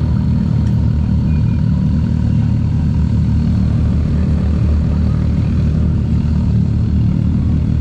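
Motor vehicle running with a steady, loud low rumble that holds an even level and does not rise or fall.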